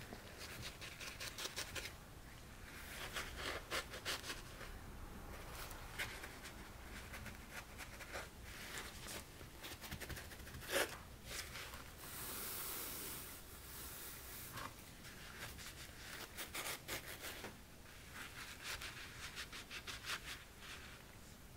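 A paper shop towel dabbed and rubbed against the bottom edges of a GoBoard box and the tabletop, blotting the seams for moisture. Faint, irregular rustles and taps, with one sharper tap near the middle and a longer soft wipe just after it.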